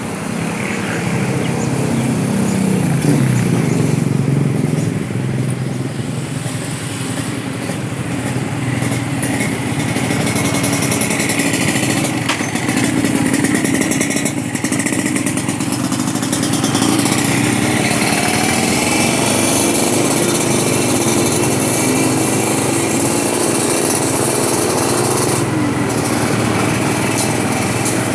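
Road traffic with motorcycle and other vehicle engines running; an engine's pitch falls over the first few seconds.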